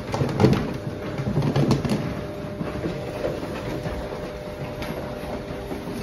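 Piglets grunting in a crowded pen, with short low grunts in the first two seconds that then thin out, and scattered clicks and shuffles. A steady hum runs underneath.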